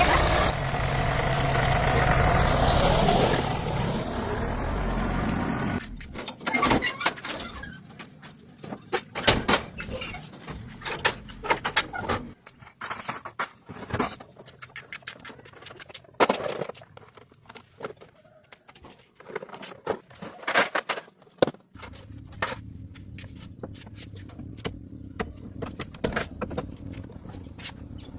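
A car engine running, cutting off about six seconds in, followed by scattered metallic clicks, knocks and scrapes, with a low steady hum returning near the end.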